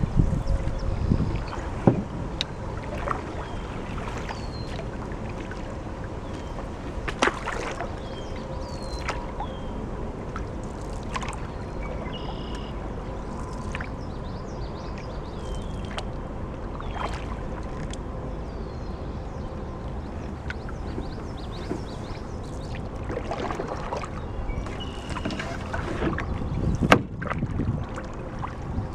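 Canoe paddling: a paddle dipping and stroking through the water with occasional knocks against the canoe, over low wind rumble on the microphone, and a louder knock near the end. Birds call throughout with short, high, down-slurred chirps.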